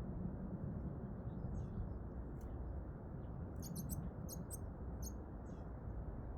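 Small garden birds chirping and calling in short, high notes, with a quick run of sharp chirps in the middle, over a steady low background rumble.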